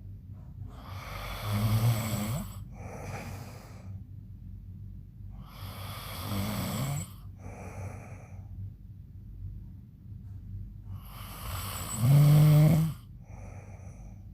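A man snoring loudly in his sleep: three snores about five seconds apart, each a long noisy breath in with a low buzzing rattle, followed by a shorter, quieter breath out. The last snore is the loudest.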